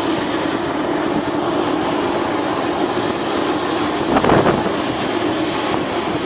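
Jet engines of a line of F-16 fighters running on the ramp: a steady high-pitched whine over a constant rumble. Wind is buffeting the microphone, with a louder gust about four seconds in.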